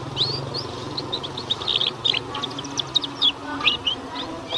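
Young male domestic canary twittering: a fast, irregular string of short, sharp chirps and quick sweeping notes, the babbling practice song of a juvenile canary starting to find its voice.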